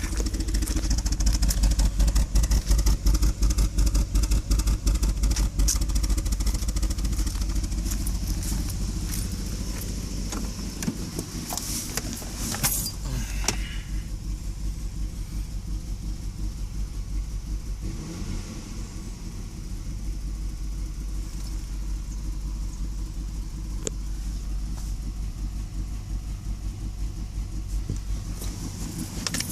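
Warm Lexus IS300 engine idling roughly with a misfire, the exhaust pulsing unevenly; the idle is louder and lumpier for the first several seconds, then drops and settles lower after about ten seconds. The rough idle goes with a P1349 variable valve timing fault, with the oil control valve just plugged back in. A brief knock and clatter about twelve seconds in.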